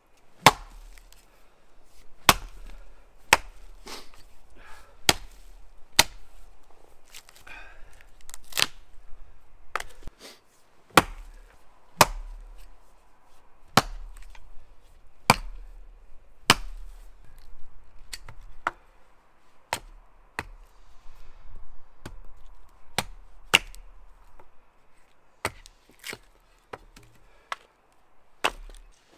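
An axe chopping into the wood of small trees: sharp, single strikes at an uneven pace of roughly one a second.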